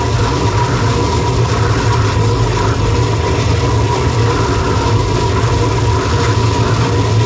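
Harsh noise music played live on electronics and effects pedals: a loud, unbroken wall of distorted noise with a deep rumble underneath and a steady high tone running through it.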